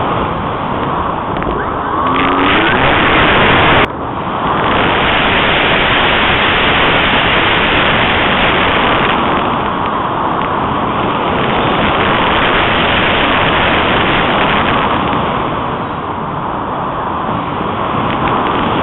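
Loud rushing wind noise from airflow blasting over the microphone of a small keychain camera carried on a model glider in flight. The rush eases twice, near the middle and toward the end, and a sharp click with a momentary dropout comes about four seconds in.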